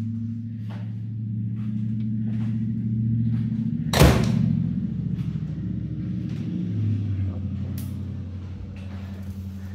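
An over-the-range microwave's door shut with one sharp clack about four seconds in, over a steady low hum.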